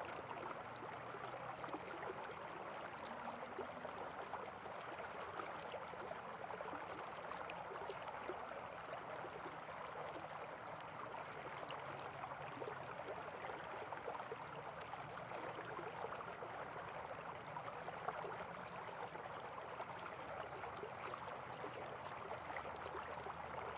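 Faint steady rushing noise with a low hum beneath it.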